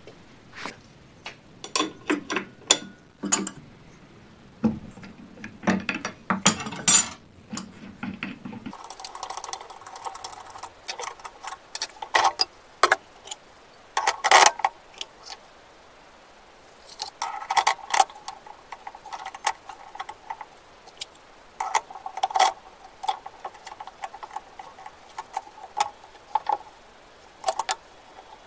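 Irregular metallic clinks, clicks and rattles of steel dado-stack blades and chippers being handled and fitted onto a saw arbor. There is no saw motor running.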